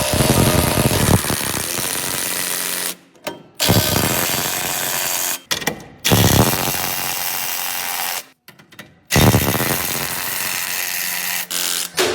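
A power tool runs in four stretches of about two to three seconds each, with short pauses between them, as it drives a fastener on the car.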